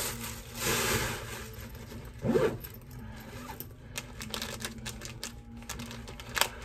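Hands rummaging in and packing a backpack: rustling with a run of small clicks and rattles, a brief louder sound about two seconds in and a sharp click near the end.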